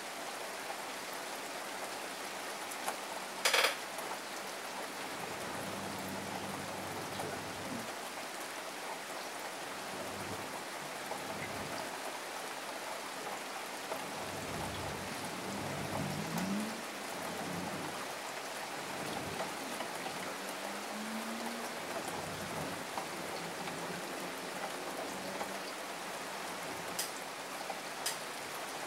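Steady rain falling, an even hiss throughout, with one short sharp click about three and a half seconds in and a few fainter ticks near the end.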